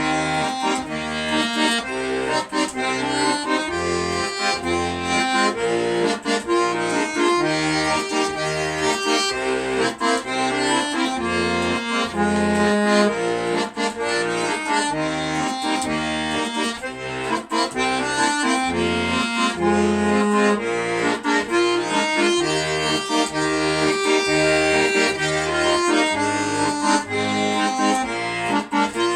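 Accordion playing an instrumental tune: a melody over sustained chords, with a regular pulsing bass line underneath.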